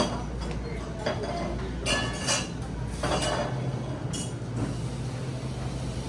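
Cups and dishes clinking and clattering in a coffee shop: a sharp clink at the start, then a few short clatters, over a steady low hum.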